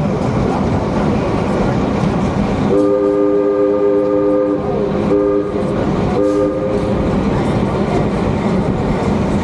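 Excursion train running with steady, loud wheel and car noise. About three seconds in, the locomotive sounds a three-note chime: one long blast, a short one, then another lasting under a second.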